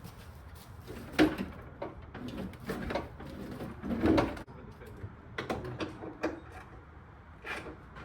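Irregular knocks and clatters, loudest about a second in and again about four seconds in.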